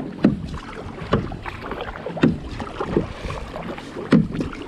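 Kayak paddle strokes splashing into the sea, alternating sides about once a second, with water running off the blades between strokes.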